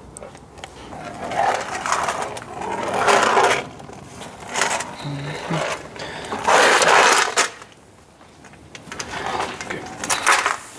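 Workshop handling noise: a metal lower oil pan scraping and knocking as it is fitted onto an engine block, in several short bursts. Bolts clink in a tray near the end.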